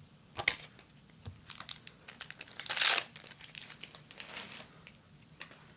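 Crinkling plastic wrapper of a Final Fantasy TCG booster pack being handled and torn open, with the loudest tear about three seconds in among lighter rustles and clicks.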